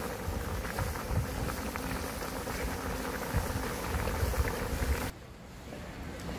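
Eel soup bubbling at a rolling boil in a large cauldron, with a crackling, rumbling sound. About five seconds in it cuts off abruptly to a quieter, steady outdoor hum.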